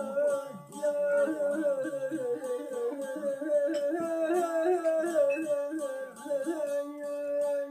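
Saz, a long-necked Azerbaijani lute, plucked in an ornamented, trilling melody over a steady drone, which settles onto one held note near the end.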